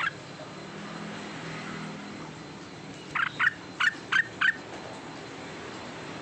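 A bird calling: one short note at the start, then a quick run of five short, loud notes about three seconds in.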